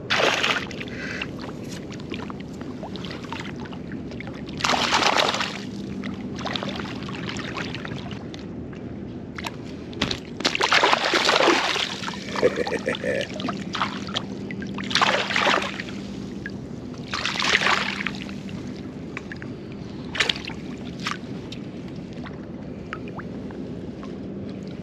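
Water splashing and sloshing in repeated irregular bursts as a hooked flounder is fought at the surface and netted by a wading angler.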